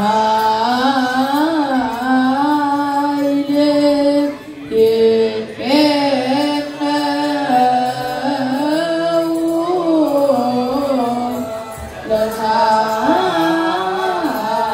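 A group of youth deacons chanting wereb, an Eritrean Orthodox Tewahedo church hymn, in unison: long held notes that waver and bend in ornaments, with brief breaths about four and twelve seconds in.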